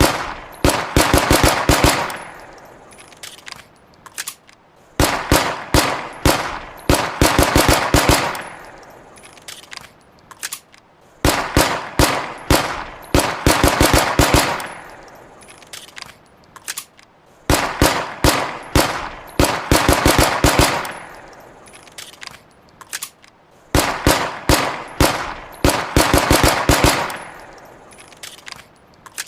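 Walther PPK pistol sound effect: rapid strings of sharp shots, two quick volleys a second or so long in each round, followed by a fading echo. The same pattern repeats evenly about every six seconds, like a loop.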